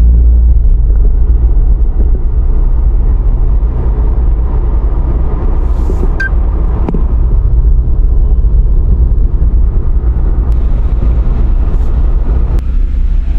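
Steady low road and drive rumble inside a moving truck's cabin, with one short click about six seconds in.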